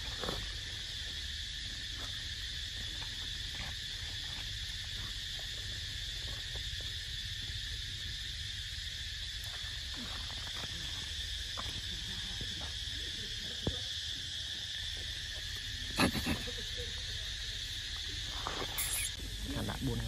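Steady, high-pitched insect chorus droning without a break, over a low rumble, with scattered faint clicks and one sharper click about 16 seconds in.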